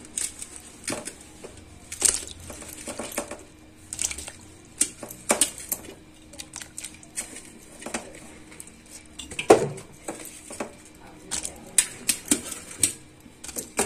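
Cauliflower florets dropped by hand into a steel bowl of water: irregular knocks and plops against the metal, with one louder knock a little past the middle.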